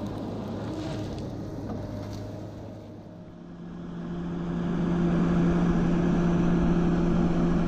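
Tracked feller buncher's diesel engine running: a rough machine rumble that dips about three seconds in, then a steady droning engine note swells up and holds.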